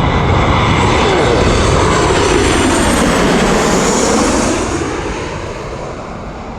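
Airliner on approach to land passing low overhead: loud engine noise whose pitch drops as it goes by about four seconds in, then fades away.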